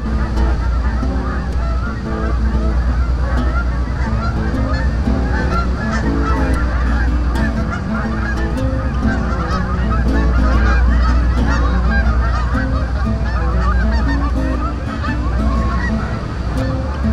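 A large flock of Canada geese honking continuously, with many calls overlapping into a dense chorus.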